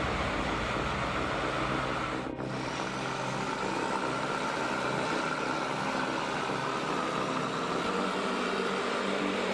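A heavy machine's engine running steadily, a low, even drone with a brief dip about two seconds in.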